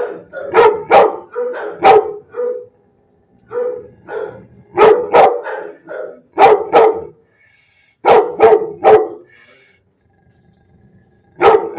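A dog barking in bursts of a few barks each, with pauses of a second or two between bursts and a longer pause before a last bark near the end.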